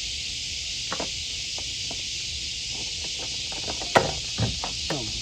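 Small plastic clicks and knocks of tail light bulb sockets and wiring plugs being handled and twisted in, with one sharp click about four seconds in, over a steady hiss.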